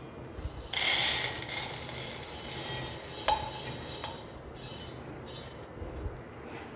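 Roasted chana dal being tipped from a pan into a metal vessel, the grains rushing in about a second in, followed by a spoon scraping and clinking against the metal.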